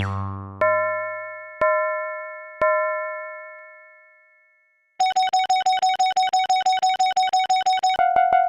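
Synthesized bell sound effects: three struck chime notes about a second apart, each ringing out and fading. Then, about five seconds in, a level-crossing warning bell starts up, a steady pitched ding repeated several times a second, and its tone changes near the end.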